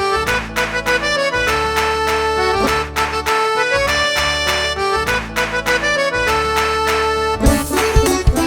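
Instrumental nursery-rhyme backing music with a steady beat and a bright, reedy lead melody, changing to busier percussion near the end.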